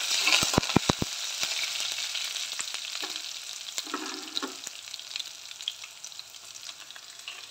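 Oil sizzling in a metal kadhai with a mustard-seed, cumin and curry-leaf tempering, stirred with a spatula. There are a few sharp clicks in the first second, and the sizzle slowly dies down.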